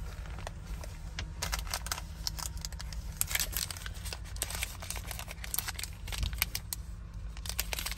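Plastic fruit-bar wrappers crinkling as they are handled and shuffled between the hands, in many irregular crackles, over a low steady hum.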